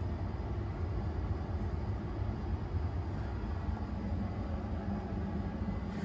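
Modulating gas furnace running, its DC-motor blower fan giving a steady low hum.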